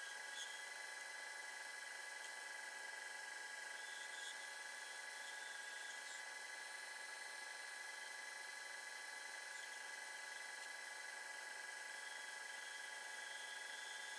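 Metal lathe running with a steady whine of several constant pitches while a carbide-tipped tool on a ball turning attachment takes light cuts on a brass ball, with a few faint ticks.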